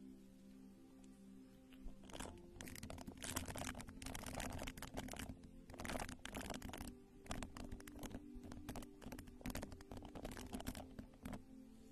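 Close-miked ASMR rubbing and dabbing: a soft round pad or puff is brushed against the microphone in irregular scratchy strokes. The strokes start about two seconds in and come in clusters, over quiet background music with steady held tones.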